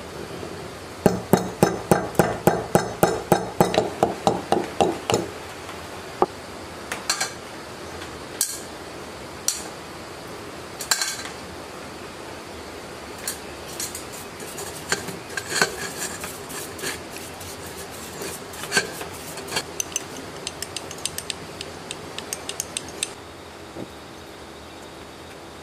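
Claw hammer tapping a small steel machine part on a wooden bench, a fast even run of about four blows a second for some four seconds, starting about a second in. Then scattered light metallic clinks of small parts being handled and set down in a steel bowl.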